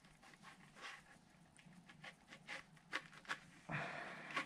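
Braided stainless steel sleeve being worked by hand along a radiator hose: faint, irregular scratching and clicking of the wire braid, with a louder scraping rustle near the end.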